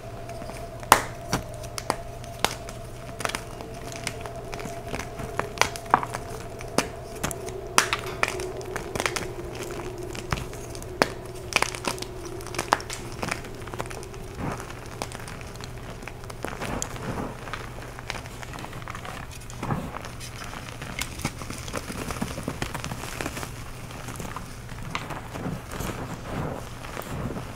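Hands crushing dyed chalk blocks into loose powder: many crisp snapping crunches in the first half, turning to softer crumbling and squishing of the powder later. A low steady hum runs underneath.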